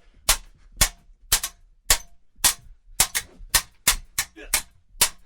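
Swords clashing in a fencing fight: sharp metallic strikes about two to three times a second in an uneven rhythm, some coming in quick pairs.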